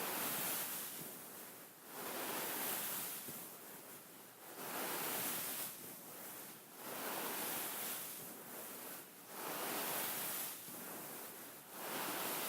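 Hands brushing and rubbing over a beaded pillow in slow repeated strokes: a rustling swell of noise about every two and a half seconds, each fading before the next.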